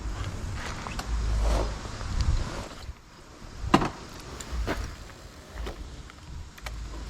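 Kawasaki KLX230 single-cylinder engine running through an aftermarket Triton exhaust, the low rumble swelling and easing as the throttle opens and closes. A few sharp cracks come through, the loudest about halfway in.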